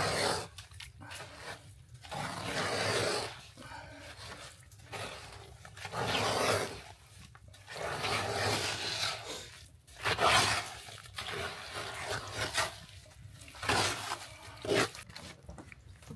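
Wooden spoon stirring wet granulated sugar in an aluminium pot, with gritty scraping strokes about a second long coming irregularly. The sugar has only a little water in it, just enough to blend it before cooking.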